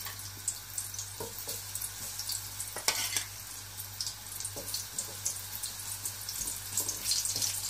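Batter-coated mushroom pieces for Mushroom 65 sizzling and crackling in hot oil in a nonstick wok as more pieces are dropped in. Scattered sharp knocks, the loudest about three seconds in, and a spatula moving the pieces near the end.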